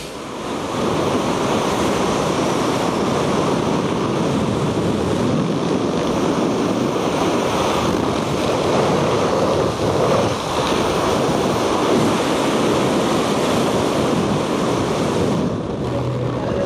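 Steady wind rushing and buffeting over the camera microphone during a parachute descent.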